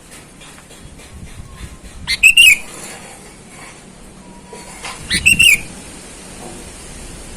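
Sooty-headed bulbul giving two short, loud bursts of quick whistled call notes, about three seconds apart.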